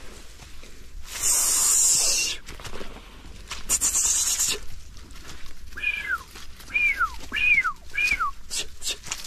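Two loud bursts of hiss, then four short, high animal calls about half a second apart, each sliding down in pitch.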